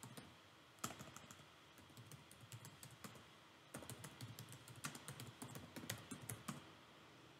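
Faint typing on a computer keyboard: quick runs of key clicks, the busiest run starting about halfway through and stopping shortly before the end.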